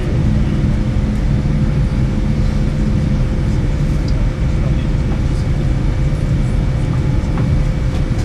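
Cabin noise inside a Boeing 787-9 taxiing with its GEnx-1B engines at idle: a steady low rumble with a thin steady tone above it.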